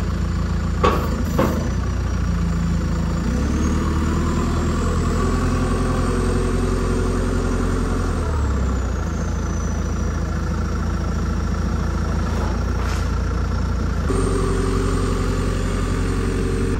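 JCB telehandler's diesel engine running, revving up for several seconds from about three seconds in and again near the end. Two sharp knocks come about a second in.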